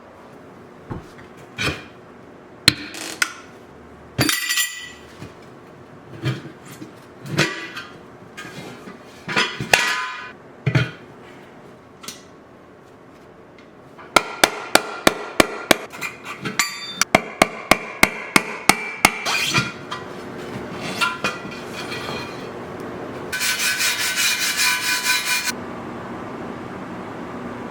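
Hand tools at work on metal: scattered hammer blows and clanks that ring, then a quick run of strikes, about three a second, for several seconds in the middle. Near the end comes a steady buzz of about two seconds.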